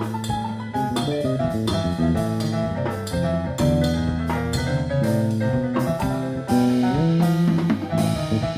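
Small jazz band playing a chacarera: drum kit with cymbals and bass under a moving melody and chords.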